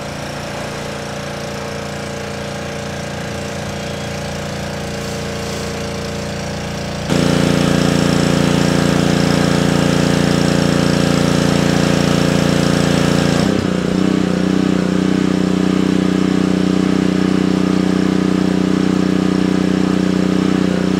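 Small engine running steadily at a constant speed. It gets abruptly louder about seven seconds in, and its pitch shifts suddenly around thirteen seconds in.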